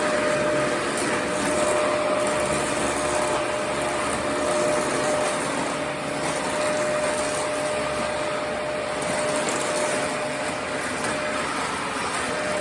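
Vacuum cleaner running steadily, a constant whine over the rush of its air.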